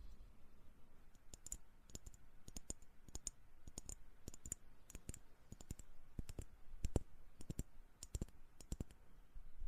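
A steady series of soft, crisp clicks made close to the microphone for ASMR, coming about two or three a second, often in quick pairs.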